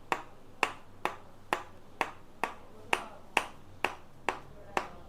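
Steady sharp clicks in an even beat, a little over two a second, each with a short ringing tail.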